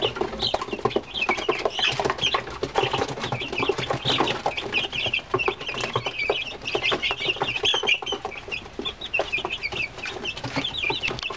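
A flock of young frizzle and Brahma chickens peeping continuously, many short high calls overlapping one another, with scattered small clicks among them.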